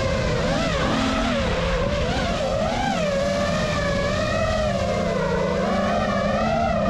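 FPV drone's electric motors and propellers buzzing in a high whine, the pitch rising and falling as the throttle changes.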